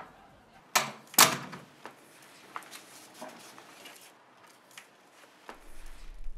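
Two sharp thumps about half a second apart, then faint scrapes and ticks of a paper note sliding over a wooden floor. A low hum comes in near the end.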